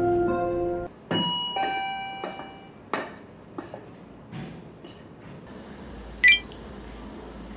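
A few ringing chime-like notes with scattered light clicks, then one sharp, high, ringing ding about six seconds in.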